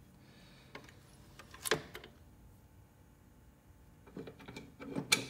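Bolts and a cast-iron mower-deck spindle housing being handled and fitted from under the deck: a sharp metal click about two seconds in, then a few softer knocks and another sharp click near the end, with quiet between.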